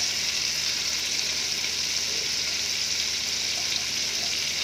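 Butter sizzling as it melts and foams in hot refined oil in a pan: a steady hiss.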